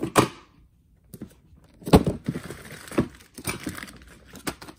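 Cardboard box and packaging being handled: rustling and crinkling with a string of knocks and thunks, the loudest about two seconds in.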